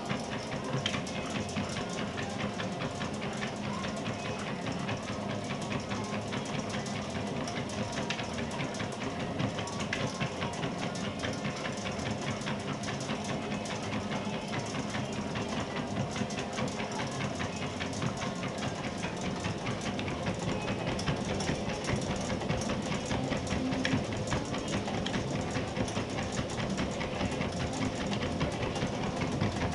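Dog treadmill running steadily, its belt and rollers making a continuous mechanical hum with a rapid rhythmic clatter as a dog trots on the belt.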